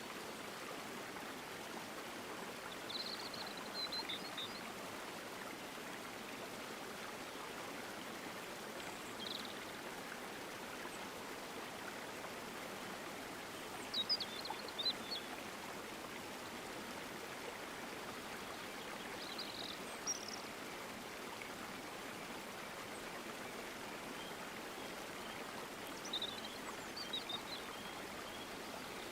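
Steady rush of the Rammam river, a mountain river, with short high bird chirps breaking in about five or six times.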